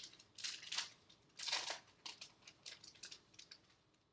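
Foil trading-card pack wrapper crinkling and rustling in several short bursts, then lighter scattered clicks of cards being handled.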